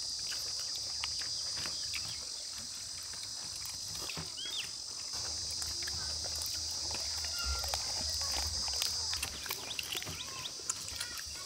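Steady high-pitched insect chirring, with scattered short chirps and small clicks over it.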